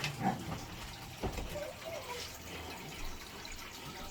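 Aquarium water trickling and dripping, with a single low thump about a second in.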